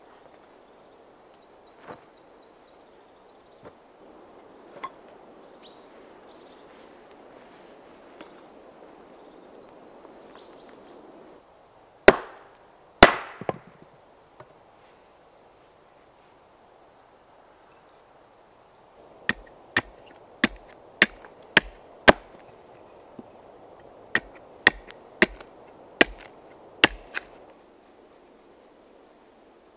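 Homemade billhook chopping into wood on a chopping stump: two heavy blows, then a quick run of about a dozen sharper strikes, roughly two a second, as a wood blank is hewn.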